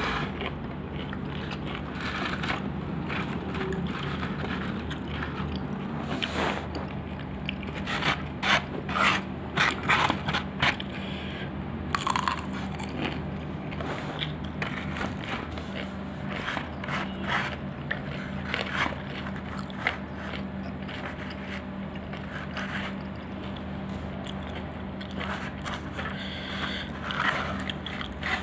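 Eating crispy fried chicken by hand: crunching and chewing, with fingers tearing the chicken and scraping and rustling in a styrofoam box lined with plastic. The crackles come in irregular runs, loudest about a third of the way in, over a steady low hum.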